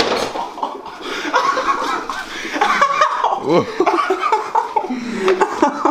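A man laughing, in broken, rising and falling vocal bursts.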